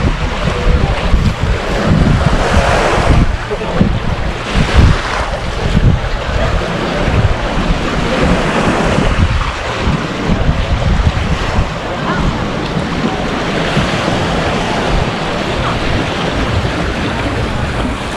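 Wind buffeting the microphone over the steady wash of sea waves on a beach. The gusts are heavy in the first several seconds, then settle into a more even rush.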